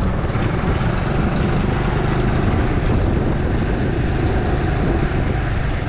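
Motorbike engine running steadily on the move with a low rumble, the bike carrying several riders.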